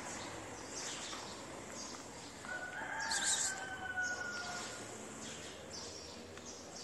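A single drawn-out animal call, held on one slightly falling pitch for just under two seconds, beginning about two and a half seconds in, over a steady background hiss with short rustling bursts.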